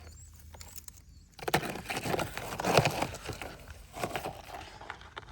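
Rustling and crackling of dead wood and leaf litter being pulled apart or broken, with many small snaps, starting about a second and a half in and loudest near three seconds, then a shorter burst about four seconds in.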